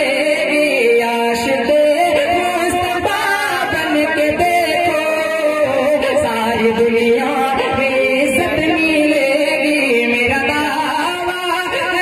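A man singing a naat, an Urdu devotional poem, into a microphone over a PA system, in long, bending held notes.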